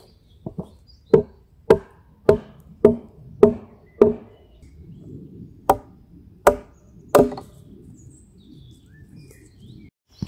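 Wooden club striking the ends of wooden poles, driving them as table legs into holes in a log: two light taps, then a run of six hard, ringing wooden knocks about every 0.6 s, a short pause, and three more.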